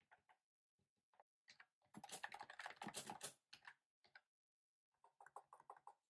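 Typewriter-style computer keyboard with round retro keycaps being typed on: a few scattered keystroke clicks, a fast run of typing about two seconds in, then a couple of single clicks and another short run of typing near the end.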